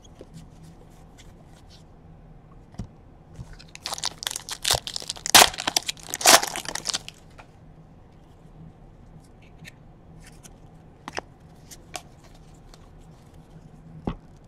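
Trading cards handled and flipped by hand: a burst of crinkling and rustling from about four to seven seconds in, with scattered light clicks before and after.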